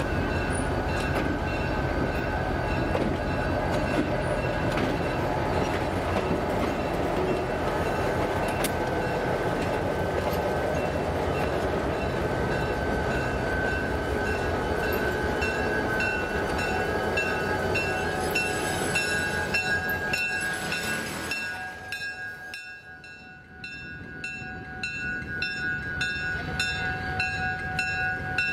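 Two EMD diesel-electric road-switcher locomotives, a GP-38 and a GP-35, running close by as they pass slowly: a loud engine rumble with a steady high whine over it. Near the end the sound drops to a quieter, more distant train.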